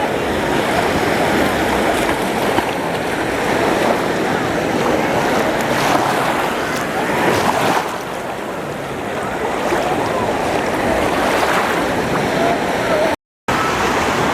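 Waves washing onto a sandy beach with wind across the microphone and the indistinct chatter of beachgoers; the sound cuts out for an instant near the end.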